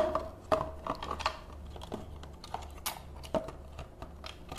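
Irregular light clicks and taps of plastic parts being handled inside a JBL Boombox 3 speaker while its internal power supply's connector jack is worked loose.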